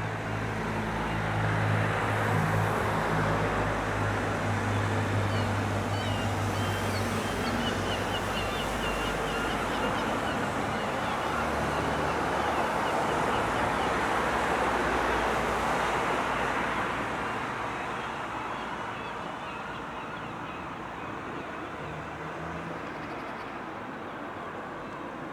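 Outdoor traffic noise: a steady low hum under a wide wash of noise that swells about two seconds in and fades away after about seventeen seconds. Faint high chirping comes through in the middle.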